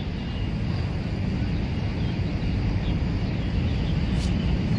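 Steady low rumble of background noise, growing slightly louder toward the end.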